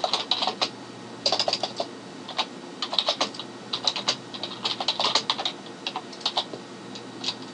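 Typing on a computer keyboard: quick runs of key clicks with short pauses between words.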